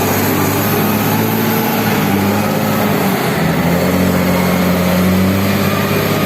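Bulldozer's diesel engine running steadily while the machine works.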